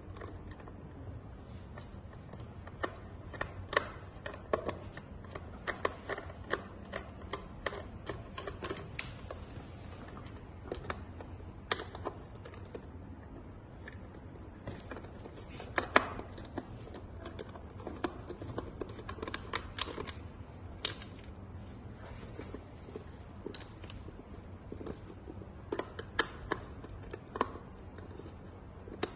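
Irregular sharp clicks and taps of hand tools and plastic parts being handled while opening an electric bike's controller box, over a low steady hum.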